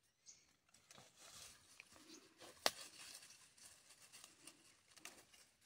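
Faint rustling of dry leaves and grass stems handled by hand on the ground while a bird snare is set, with a few small ticks and one sharp click a little over halfway through.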